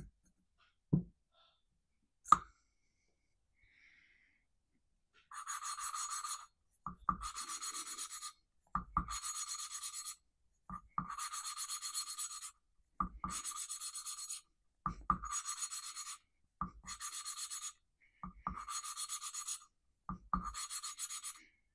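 Intake valve being hand-lapped into its seat on a Kohler Command cylinder head with fine lapping compound: nine gritty rubbing strokes of about a second and a half each, starting about five seconds in, each opening with a light knock. A few single clicks come before the strokes begin.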